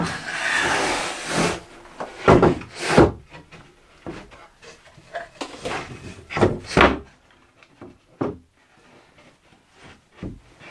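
A long timber shelf board scraping as it slides across the wooden shelf frame, then a series of wooden knocks and bumps as it is shifted into place. The loudest knocks come a couple of seconds in and again around the middle.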